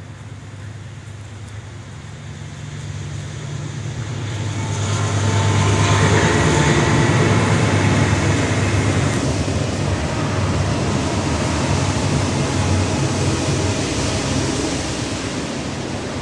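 Engine of a white GMC stretch limousine running as the limo pulls slowly forward. A steady low hum sits under a broader rushing noise that grows louder about four seconds in and stays up.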